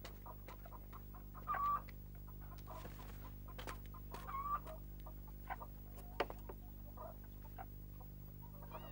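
Chickens clucking, a few short calls spaced a couple of seconds apart, with scattered faint clicks over a steady low hum. Music comes in near the end.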